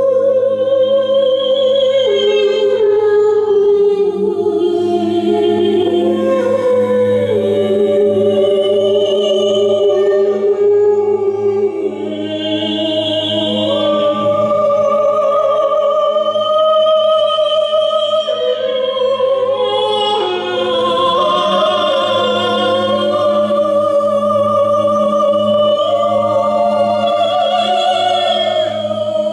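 A man and a woman singing wordless improvised melodies in long held notes with vibrato, over a steady low drone.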